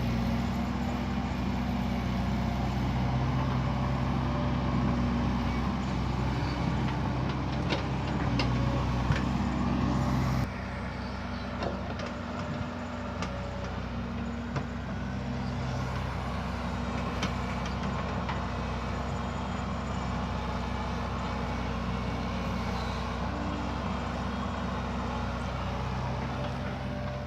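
Heavy diesel engine of earthmoving machinery (excavator or dump truck) running steadily under load. About ten seconds in it drops suddenly to a quieter, lower running note and carries on.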